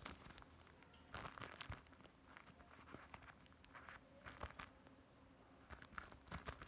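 Faint crinkling and rustling of the clear plastic wrapping and paper of a homemade paper squishy being handled. It comes in short spells, loudest about a second in and again near the end.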